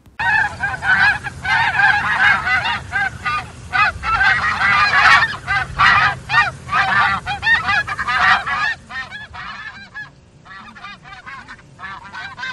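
A flock of Canada geese honking, many short calls overlapping. The calls are dense for most of the stretch, then thin out and grow fainter over the last few seconds.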